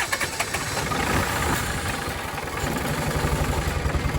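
New Holland TC45D compact tractor's diesel engine cranking on the starter, then catching about two and a half seconds in and settling into a steady, evenly pulsing run: it has started after its fuel system was bled of the air drawn in when it ran dry.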